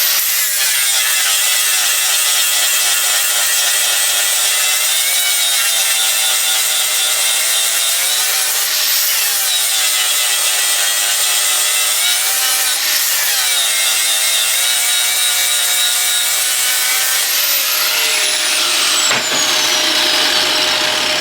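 Stick welding with a 6010 electrode on a steel plate: the arc's loud, steady crackling hiss, with a few short sweeps in pitch and a faint steady hum underneath.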